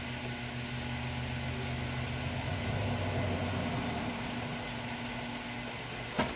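Drill press motor running with a hull conditioner tool spinning inside a fired plastic shotgun hull, a rougher rubbing sound rising in the middle as friction heats the plastic to reopen the crimped mouth. A sharp click near the end.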